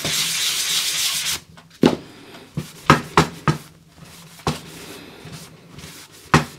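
Sandpaper rubbing on a plastic radio cabinet: a continuous rasping stroke for about a second and a half that stops abruptly, followed by scattered light knocks and taps.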